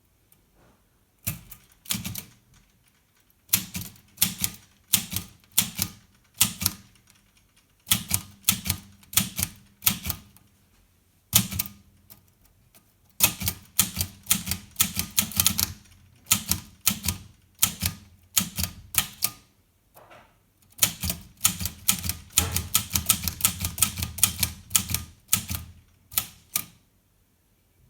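Olivetti Lettera 32 portable manual typewriter being typed on: keys strike in short runs with pauses between, and there is a quick, dense run of keystrokes about three-quarters of the way through.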